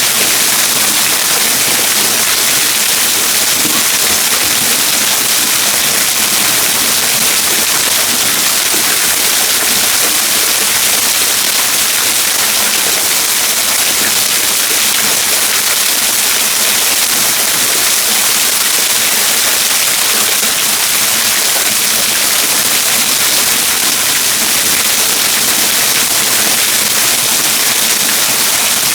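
Waterfall splashing and pouring, a loud steady rush of falling water.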